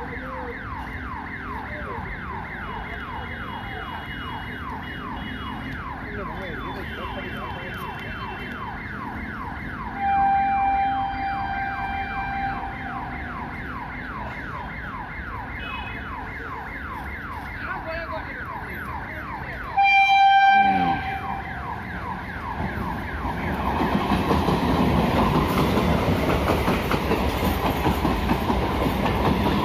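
Level-crossing warning siren wailing in rapid repeated sweeps as an electric suburban train approaches. The train sounds its horn twice, a longer blast about 10 seconds in and a short, louder one about 20 seconds in. From about 23 seconds in, the train runs past with a loud rumble of wheels on the rails.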